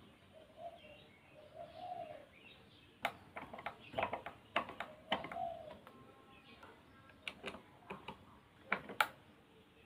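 Sharp clicks and taps of a small metal DC motor and its bracket being handled and screwed onto a wooden block with a screwdriver, loudest about three, four and nine seconds in. A dove coos softly in the background.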